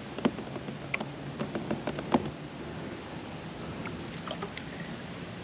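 Light, irregular clicks and taps from fishing tackle and a plastic kayak while a fish is reeled in on a spinning rod, over a faint steady hum. The clicks come thickest in the first two seconds, with a few more later on.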